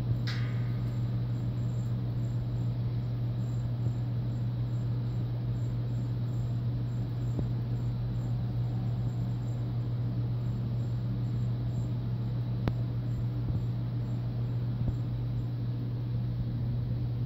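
Steady low hum at an even level, with a few faint clicks and taps as a cat pounces and bats about on a tile floor.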